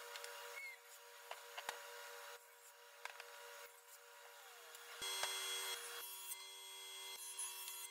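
Stationary woodworking machines running: a table saw humming as it cuts timber, its pitch sliding down about four seconds in, then a jointer running, with a few sharp knocks of wood about five seconds in.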